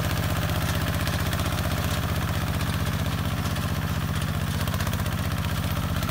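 Single-cylinder diesel engine of a walk-behind tractor converted to a ride-on 4x4, running steadily under load as it pulls a three-disc plough through dry soil. It beats at a fast, even rate with no change in speed.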